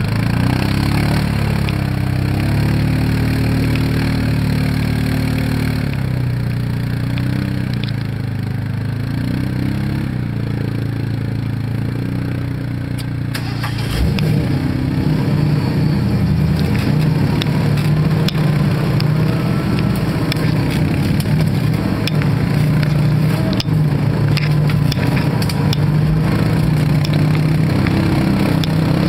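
Off-road vehicle engines idling and revving, with the pitch rising and falling. About halfway through, the engine sound grows louder and busier.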